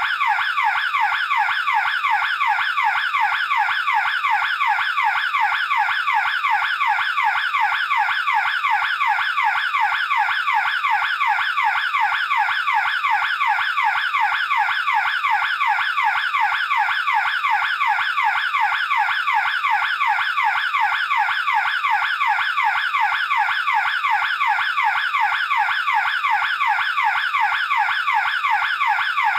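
Burglar alarm siren sounding continuously: an electronic sweeping tone repeating rapidly, several times a second, at a steady level.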